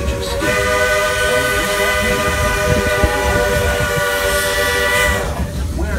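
Steam locomotive's whistle blowing one long blast of several notes sounding together, starting about half a second in and cutting off after about five seconds, over the low rumble of the moving train.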